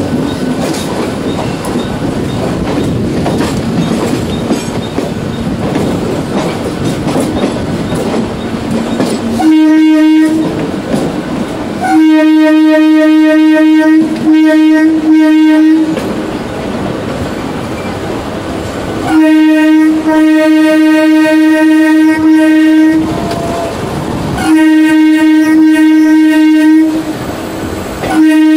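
Indian Railways EMU local trains running side by side, wheels rumbling and clattering over the rails. About nine seconds in, an EMU's horn starts sounding repeatedly on one steady pitch: a short toot, a two-second blast, two quick toots, a long blast of nearly four seconds, another of about two seconds, and a last one starting near the end.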